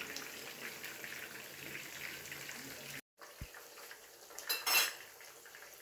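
Spiced minced-chicken cutlets sizzling as they fry in a pan. The sound drops out for a moment about halfway, and a short clatter of a utensil against the pan comes near the end.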